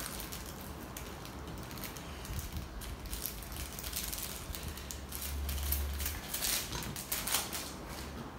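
Crinkling and rustling of a paper guitar-string envelope being handled and opened, with scattered small clicks and a brief low rumble of handling past the middle.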